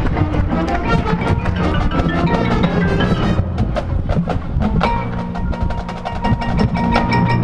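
Marching band music with the percussion to the fore: many sharp drum and mallet hits over sustained pitched notes.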